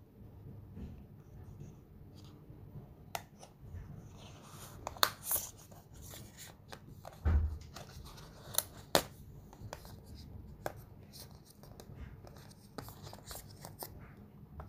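Paperboard packaging of an Apple Watch band insert being handled while silicone sport bands are pulled out of its slots: rustling and scattered sharp clicks and taps, with a low thump about seven seconds in.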